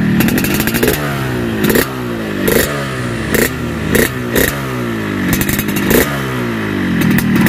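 Yamaha RX-King two-stroke single-cylinder engine revved in short throttle blips about once a second through a gutted stock muffler. Each blip gives a sharp crack and the revs then fall away, with the crisp, raspy 'garing ngorok' exhaust note the muffler was opened up for.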